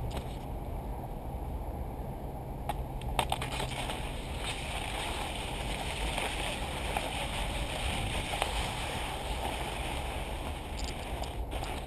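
Steady rushing noise of cross-country skis gliding over snow, mixed with wind on the microphone, with a few brief clicks about three seconds in.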